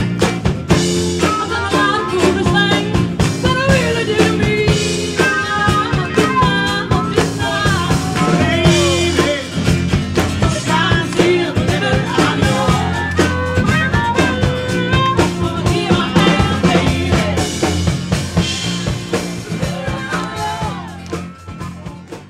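Rock music with drums and guitar, fading out near the end.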